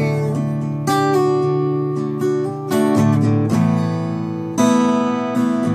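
Acoustic guitar strumming chords and letting them ring, with a new chord struck about a second in, at about three seconds and again about four and a half seconds in.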